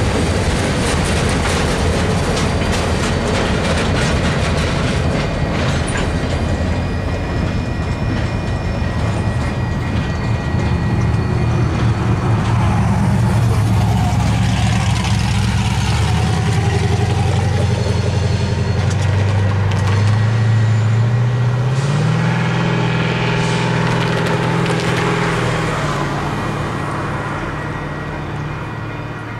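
Union Pacific EMD diesel locomotives (a GP40-2 and a GP38-2) running through a grade crossing, their engine hum stepping up in pitch about two-thirds of the way through as the throttle is opened. The crossing's electronic bell rings steadily over it, with a brief high squeal about six seconds in.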